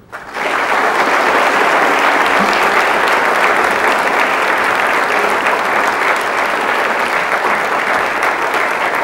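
An auditorium audience applauding, the clapping beginning abruptly and then holding steady throughout.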